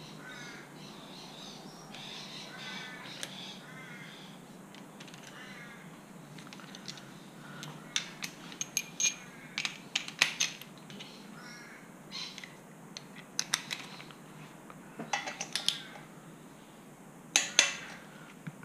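Sharp metallic clicks and clinks of a hand torque wrench and socket working the camshaft tower nuts on an air-cooled Porsche 911 flat-six, coming in clusters of several quick clicks every few seconds.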